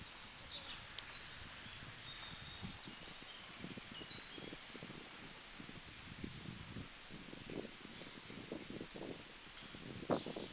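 Outdoor ambience: small birds chirping and twittering over faint soft rustling and handling noises, with one brief thud near the end.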